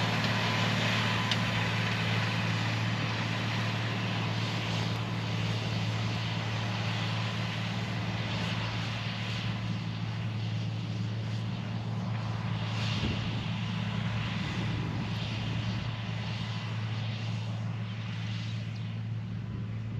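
Tractor diesel engine running steadily: a constant low drone with hiss above it.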